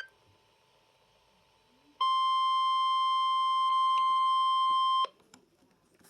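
Weather radio sounding its warning alert: after about two seconds of near silence, a steady, high, buzzy beep lasts about three seconds and stops, then starts again right at the end.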